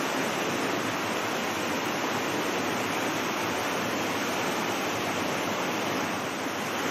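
Steady rushing of a nearby mountain river flowing over gravel, an even noise without breaks.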